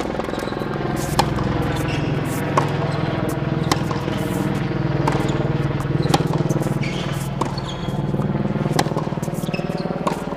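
Tennis racket strikes on the ball in a feeding drill, sharp pops at an even pace of about one every 1.2 seconds, over a steady low mechanical hum.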